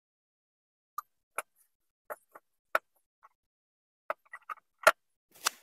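Irregular sharp clicks and knocks from a 36 mm socket and wrench working loose the oil filter cap on a Detroit DD15 diesel engine, the loudest about five seconds in, with a brief scrape just after it.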